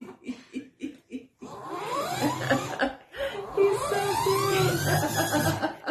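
Remote-control toy spaceship running with its electronic sound effect: rising whirring tones over a steady low hum, after a few short chuckles in the first second.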